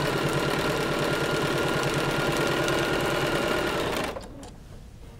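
Sewing machine running a short straight stitch at a steady speed, with rapid, even needle strokes. It stops about four seconds in.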